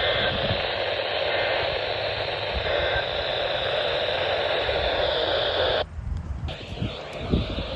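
Weather radio receiver hissing with static between broadcasts, with three faint short two-tone chirps under the hiss in the first three seconds. The hiss cuts off abruptly about six seconds in, leaving a quieter background rumble.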